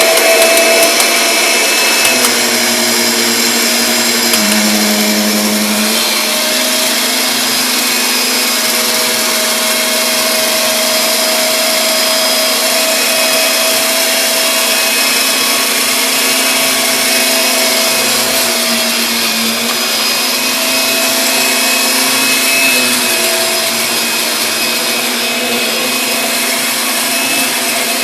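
Kirby Sentria 2 upright vacuum cleaner running steadily at full power, a loud motor whine over a rush of air. Its pitch dips briefly about five seconds in. It is being run back over carpet to pull leftover carpet powder into a dirt-meter test pad.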